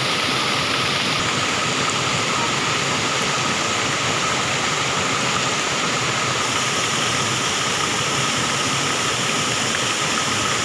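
Rushing water of a mountain stream, a steady, even rush.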